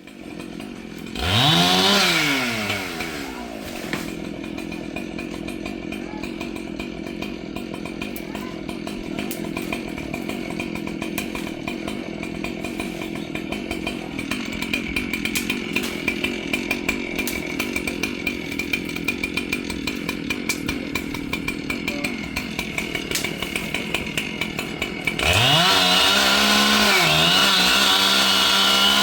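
Petrol chainsaw blipped to high revs about a second in and dropping back, running lower and steadier for about twenty seconds, then opened up to a loud full-throttle run near the end.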